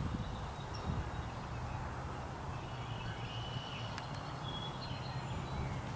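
Outdoor ambience: a steady low rumble of wind on the microphone, with a few faint bird chirps in the middle.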